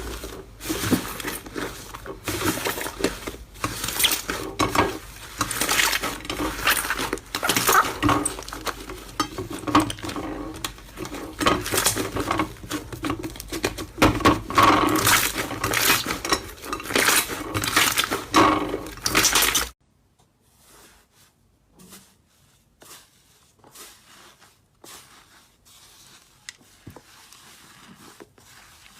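Slime being squeezed and poked by hand: a dense run of wet clicks and crackles over a faint low hum. About two-thirds of the way through it cuts off abruptly to a much quieter stretch of softer, sparser clicks.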